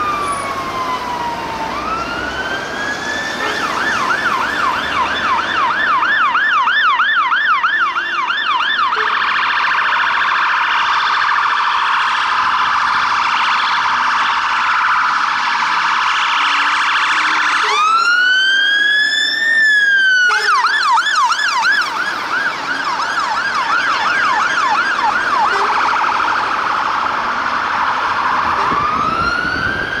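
Sirens of a fire engine convoy and its police escort responding. They switch between a slow rising-and-falling wail and a rapid yelp of about three sweeps a second, with several sirens overlapping in the middle.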